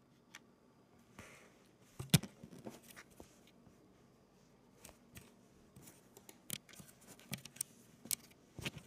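Irregular light clicks and taps of a kitten's paws and claws batting at the camera up close, the sharpest about two seconds in and several more near the end.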